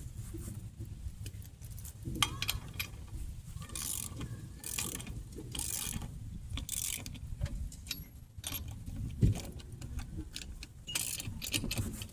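Hand ratchet wrench being worked on a bolt in repeated strokes, its pawl clicking in short runs about once a second.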